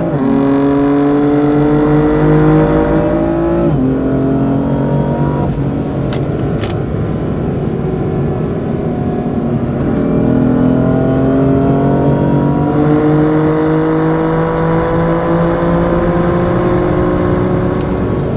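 BMW M4's twin-turbo inline-six on its stock exhaust, heard from inside the cabin under acceleration. The engine note climbs, drops at an upshift about four seconds in, then climbs steadily again through the second half. The stock system has unequal-length pipes, which the owner finds a somewhat metallic, raspy, unclean tone, and part of the cabin sound is BMW's Active Sound Design playing synthetic exhaust through the speakers.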